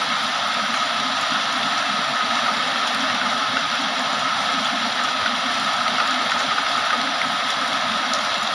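Heavy rain pouring steadily, an even dense hiss of drops.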